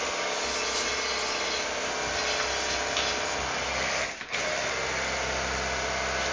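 Pressure washer's motor and pump running steadily while spraying water. It cuts out briefly about four seconds in, then runs on.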